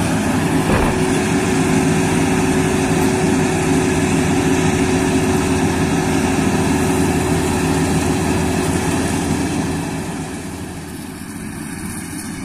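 Fieldking combine harvester running steadily as it cuts ripe rice: an even engine and machinery drone with a constant hum. It turns quieter about ten seconds in as the machine is farther off.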